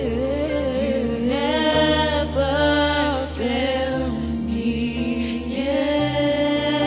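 Contemporary worship music: voices singing long, held, wordless notes over a slow, sustained accompaniment.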